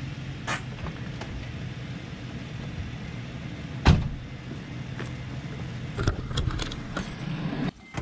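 Car engine running steadily with a low hum, a single heavy thump about four seconds in and a run of clicks and knocks toward the end; the engine sound cuts off suddenly just before the end.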